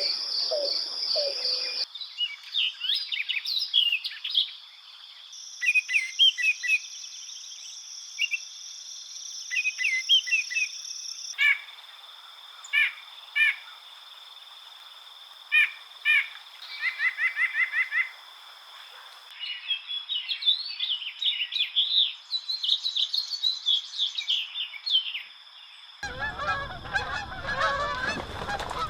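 Several different songbirds singing and calling in turn: high chirps, short trills and whistled phrases, each recording cut sharply into the next. About three seconds before the end, geese start honking.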